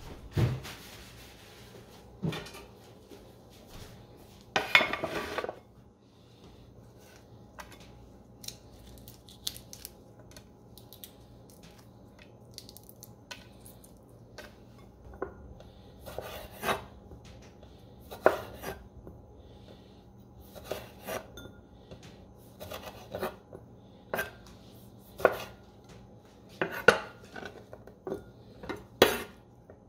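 Kitchen prep handling: scattered knocks and clinks of bowls, a plate and a knife on a wooden cutting board, with a longer scrape about five seconds in and a run of sharp knocks every second or two through the second half.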